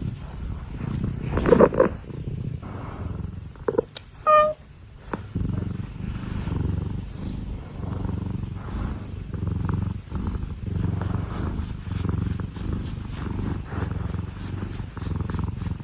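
Domestic cat purring close to the microphone, a low rumble that pulses with each breath. A few brief noises come first, including a short high tone about four seconds in.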